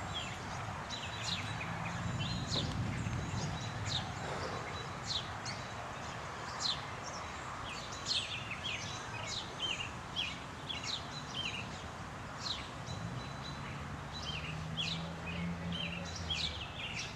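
Birds chirping over and over: many short, high, downward-sweeping calls, a few each second, over a steady low background noise outdoors.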